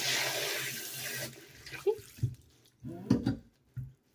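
Water spraying from a pull-down kitchen faucet's spray head into a stainless steel sink: a steady hiss, the head switched to spray mode with its button, that fades out a little over a second in. A few short knocks and clunks follow as the faucet is shut off and the head handled.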